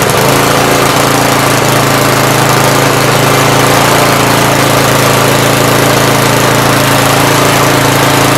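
Briggs & Stratton single-cylinder engine on a Craftsman tiller running at a steady, even speed.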